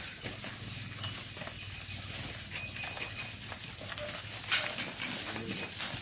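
A herd of cattle walking, their hooves clopping and clicking on the ground in an uneven patter.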